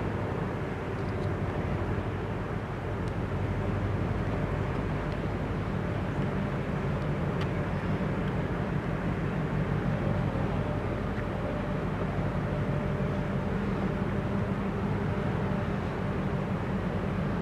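Steady low rumble of a large ship's engines and machinery, with a constant hum of several held tones and no change in level.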